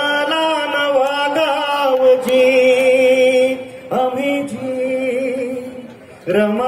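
A singer holding long wordless notes with a slight waver, in about three sustained phrases that each fade out, between verses of a Marathi devotional-style song.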